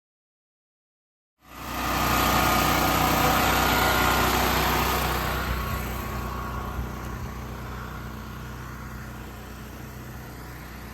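A vehicle engine running steadily after a second or so of silence, growing gradually quieter over the middle of the clip.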